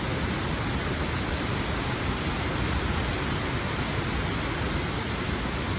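Waterfall cascades rushing in a steady, even roar of falling water.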